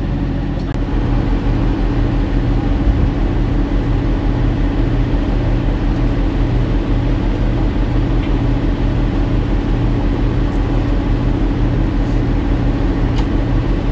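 FriendShip boat's engine running with a steady low throb and hum, growing stronger about a second in as the boat maneuvers at the dock.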